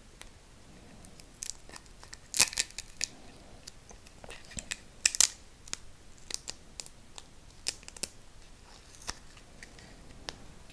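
Talon adhesive rubber-texture grip wrap being handled and pressed around a pistol's polymer grip: irregular sticky crackling and tearing-like snaps of the adhesive, sharpest about two and a half and five seconds in.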